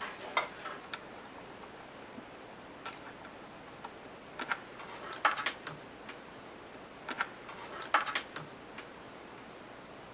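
Hands handling craft supplies on a tabletop: scattered light clicks and taps, a few in quick clusters, over faint room hiss.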